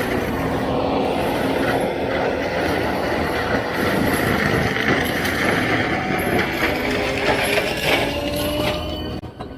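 Takeuchi TL12 compact track loader working, its diesel engine running steadily under load with a hydraulic whine that drifts slightly in pitch.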